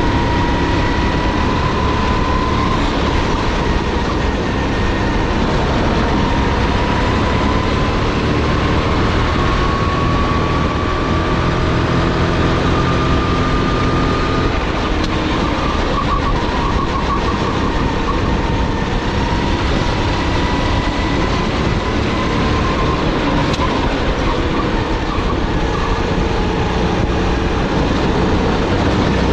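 A SODI GT5R rental kart's 270 cc, 9 hp four-stroke engine at racing speed, heard from on board. Its pitch climbs slowly over the first dozen seconds, drops about halfway through, then climbs gently again as the kart goes from straight to corner to straight.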